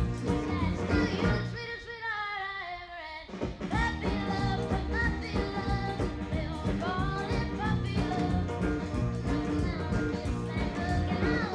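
Background song: a singing voice over a band with a steady beat and bass. A couple of seconds in, the band thins out briefly while a note slides down in pitch.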